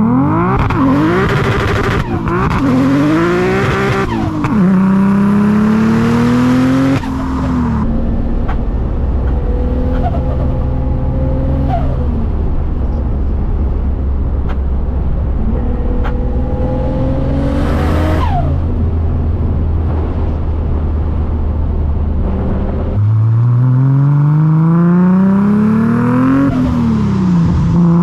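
The turbocharged RB25DET straight-six of a Nissan S15 Silvia revving hard. Its pitch climbs and drops several times in the first seven seconds, runs steadier and lower through the middle, then climbs again in one long pull near the end before dropping sharply.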